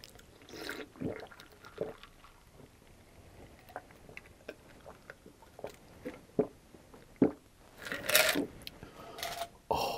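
A man drinking from a plastic cup right at the microphone: wet gulps and swallows, with a louder, longer burst about eight seconds in.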